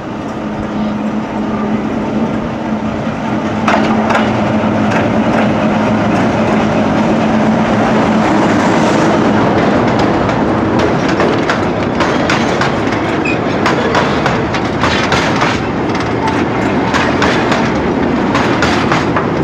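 Narrow-gauge TU2 diesel locomotive passing close by, its engine giving a steady low drone that grows louder about four seconds in. The wheels of the following goods wagon and PafaWag passenger coaches then clack over the rail joints, with the clicks thickest in the second half.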